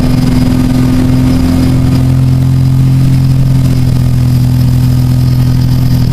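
A motorboat engine running at a steady speed close by, a loud, even, low drone that does not change pitch.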